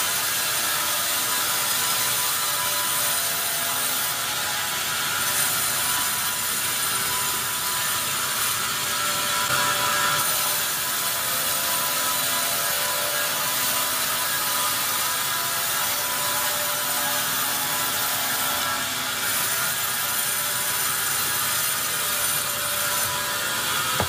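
Band saw headrig sawing lengthwise through a large, hard pine log as the carriage feeds it past the blade: a steady, loud mechanical whine of several tones over a dense hiss from the cut.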